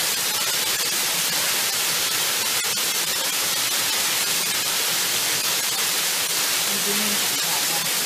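Waterfall: water pouring and splashing in a steady, loud rushing hiss.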